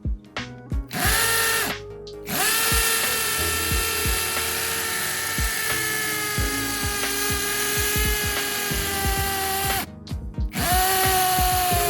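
Ingco brushless cordless hammer drill boring into concrete with a masonry bit in hammer mode: the motor whines with a rapid rattling of hammer blows. It runs in three goes: a short burst about a second in, a long run of several seconds, then another short run near the end.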